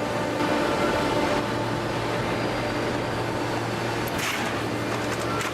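Industrial baler running: a steady mechanical hum with a brief hiss about four seconds in.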